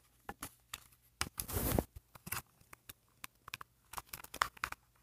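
Hands working a doll loose from its plastic packaging: scattered light clicks and scrapes of plastic, with a short rustle about a second and a half in.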